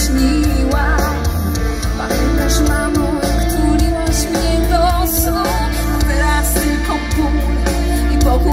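Live pop-rock band playing a song loud through a concert PA, with a wavering melody line over steady bass and sustained chords.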